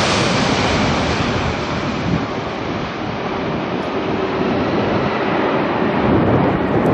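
Jet engine rumble of a four-engined Boeing 747 freighter just after it passes low overhead on landing approach, a steady broad roar whose high hiss slowly fades as the plane moves away.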